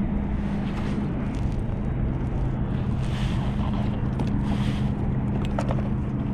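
Wind buffeting the microphone over a steady low hum, with sea water splashing against a plastic kayak. A few short handling clicks come near the end.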